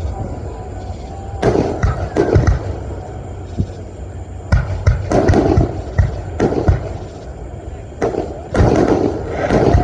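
Fireworks going off: a string of sharp bangs and pops over a low rumble, some coming in quick clusters.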